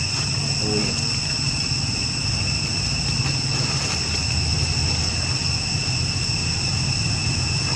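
Insects droning steadily, a high continuous whine with no breaks, over a low steady rumble.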